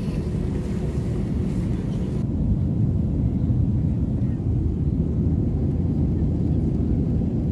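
Jet airliner cabin noise: a steady low rumble of engines and airflow heard from inside the passenger cabin, with the higher hiss thinning about two seconds in.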